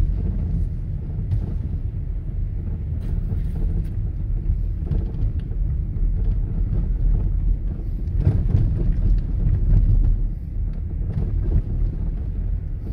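A car being driven, heard from inside the cabin: a steady low rumble of engine and tyres on the road, with a few faint knocks from bumps.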